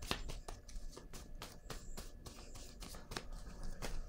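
Tarot cards being shuffled by hand: a run of irregular soft clicks and slaps as the cards slide over one another, about three a second.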